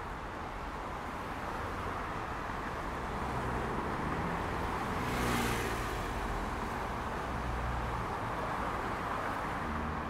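Steady city road traffic, with a vehicle's engine and tyres passing close by, loudest about five seconds in.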